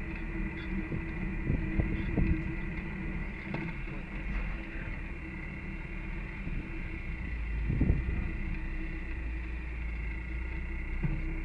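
Off-road vehicle driving on a rough trail, heard from on board: a steady engine and drivetrain hum with low rumble, and occasional knocks and jolts, the strongest about eight seconds in.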